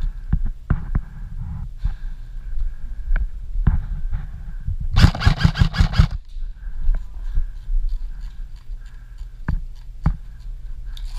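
Airsoft electric rifle firing one rapid full-auto burst of about a second, a fast run of sharp cracks, midway through. Around it, footsteps and gear knocking.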